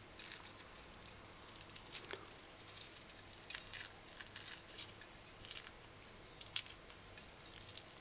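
Skin being peeled by hand off a piece of salted codfish: faint, irregular crackling and rustling.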